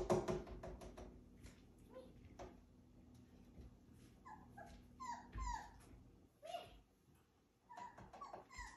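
Puppy whimpering: a string of short, high whines, each falling in pitch, starting about four seconds in and coming in quick succession again near the end.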